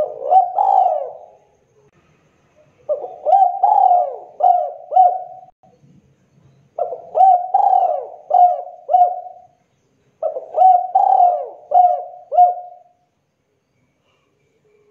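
Spotted dove cooing its song of the type fanciers call 'kuk 2': four phrases, each a quick run of several notes, with short pauses between them.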